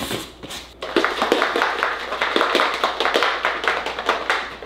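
A few knocks as a plastic shaker bottle is handled, then, from about a second in, the bottle is shaken hard for about three seconds, a fast rattling slosh of a protein shake being mixed.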